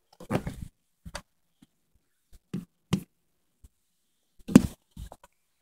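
A handful of scattered knocks and bumps with quiet gaps between, the loudest about four and a half seconds in, typical of a handheld phone being jostled and knocked about.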